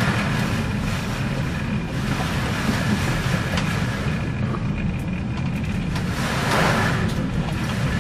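Storm sea and wind around a ship: a steady low rumble under a hissing wash of water, with a rush of spray swelling near the end.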